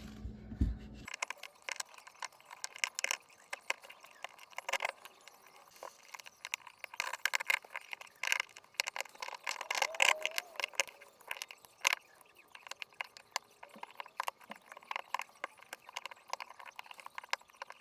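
Screwdriver tip scraping and clicking against old brass-plated steel door hinges, picking softened paint out of the creases in a long run of irregular sharp ticks and short scrapes.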